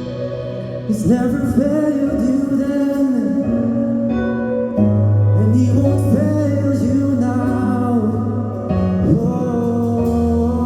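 Worship band playing a slow gospel song: sustained keyboard chords and deep bass notes, with a singer's voice gliding up and down over them from about a second in.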